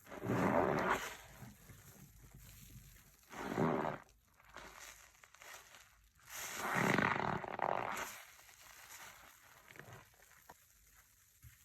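Sudsy floor-cleaner foam being squeezed and squished, three wet squelching swells, the last and longest a couple of seconds, with soft wet rustling between.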